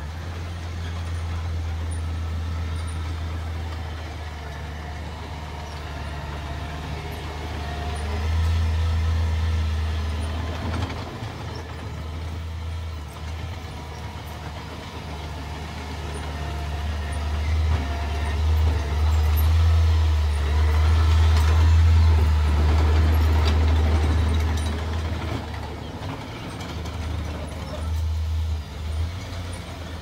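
Small bulldozer's diesel engine running under load while pushing sand. It grows louder about eight seconds in, and again for several seconds in the second half.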